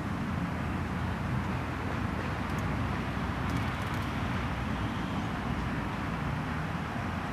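A vehicle engine running steadily, a constant low rumble, with a few faint clicks around the middle.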